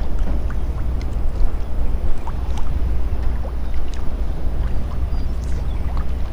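Wind buffeting an outdoor camera microphone: a steady low rumble, with a few faint scattered ticks.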